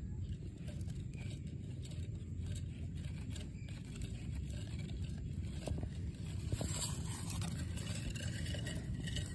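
Faint scraping and rustling of fingers handling the tail of a small foam-and-stick model plane among grass, over a steady low rumble.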